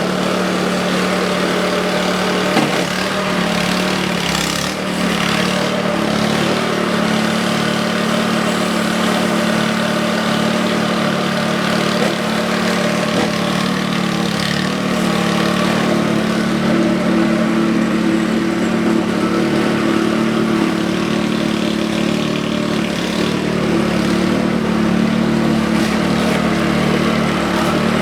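All-Power 20-inch snowblower's gas engine running steadily at an even speed on gasoline, its carburetor freshly cleaned.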